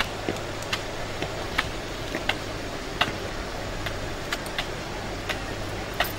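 Scattered sharp clicks, irregular at about one or two a second, over a steady low hum.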